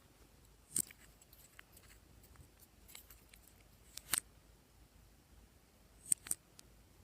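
Glossy slime being worked by hand, giving sharp popping clicks from trapped air: one just under a second in, a pair around four seconds, and two quick ones just after six seconds.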